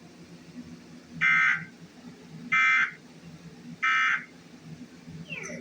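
Emergency Alert System end-of-message (EOM) data tones: three short bursts of warbling digital tones about 1.3 seconds apart, signalling that the alert broadcast is over.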